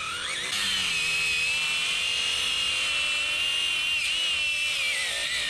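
Angle grinder cutting through hard, steel-reinforced rubber mat, a steady high whine that sags under load at first, picks up about half a second in, and sinks again near the end. The rubber doesn't cut well with the grinder.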